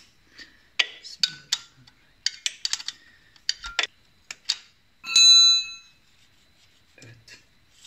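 Hand tools clicking and clinking against the valve rocker and tappet adjuster of a motorcycle engine while the valve clearance is set: a quick run of sharp metallic clicks, then one loud ringing metallic clang about five seconds in.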